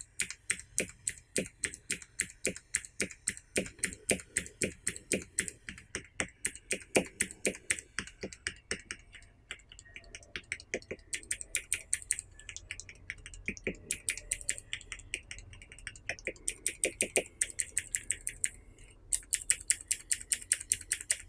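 Clicky mechanical keyboard switches (Cherry MX Blue and Razer Green) on a switch tester, pressed over and over. Each press gives a sharp click, about three or four a second, with two short breaks.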